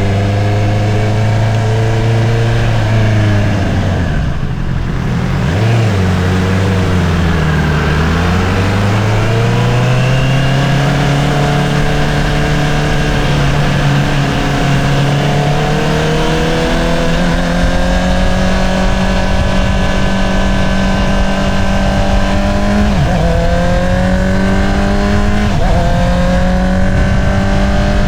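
2022 Honda CBR650R's inline-four engine through an Akrapovič single-outlet exhaust, heard from the rider's seat. Its note falls as the bike slows about four seconds in, then climbs as it pulls away and settles into a steady cruise. Near the end come two quick upshifts, each a brief dip in pitch before the note picks up again.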